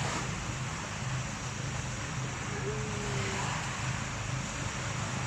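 Sea waves washing on the shore as a steady rushing, with a low steady rumble underneath.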